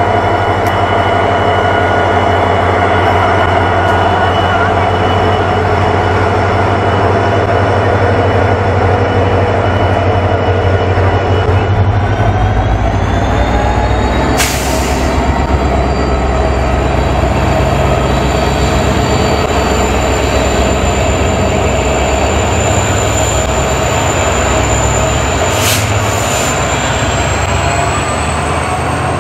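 Indian Railways diesel locomotive and its passenger coaches passing at close range: a loud, steady engine drone whose pitch rises about halfway through, then the coaches rolling by with a few sharp knocks.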